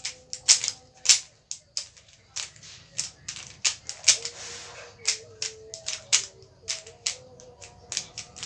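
Rubik's cube being turned by hand: its plastic layers clicking and clacking in quick, irregular twists.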